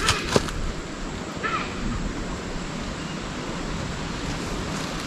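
Steady rushing outdoor noise, heaviest in the low end, with two sharp clicks right at the start and a short chirp-like call about a second and a half in.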